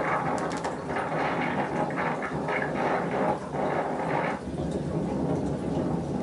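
Wind buffeting the microphone of a bike-mounted camera, an uneven rushing noise played back through a TV's speakers from a trail-ride video. It eases a little after about four and a half seconds.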